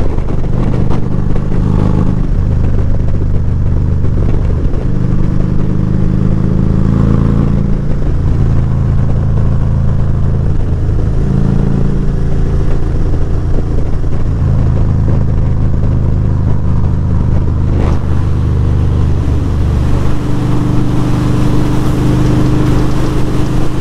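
Harley-Davidson Electra Glide V-twin engine running while the motorcycle is ridden. The engine note holds steady, then steps up or down every few seconds as the throttle and gears change.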